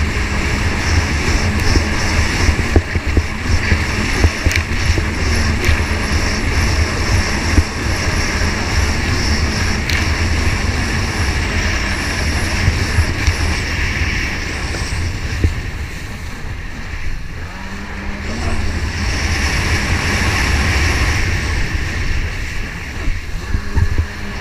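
Jet ski engine running under throttle, heard over the rush of water spray and wind on the craft's camera. The engine eases off for a couple of seconds past the middle, then picks back up.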